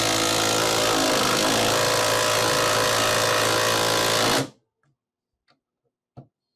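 Hyper Tough 98809 12-volt brushless impact driver hammering a 4-inch timber screw into a 2x4: a steady, rapid rattle under load that cuts off suddenly about four seconds in as the screw is driven home. A couple of light clicks follow.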